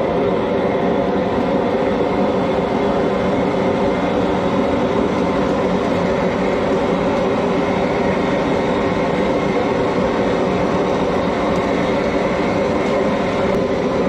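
High-pressure propane burner under a crawfish-boil stockpot running wide open: a loud, steady roar with a few held tones in it.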